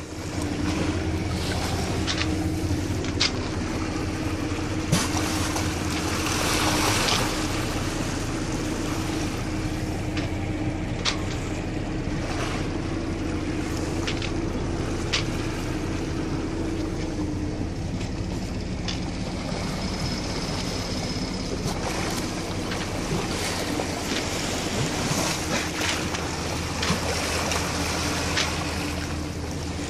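A boat's engine running steadily while under way, with water rushing along the hull and wind on the microphone. A few sharp clicks or knocks sound through it.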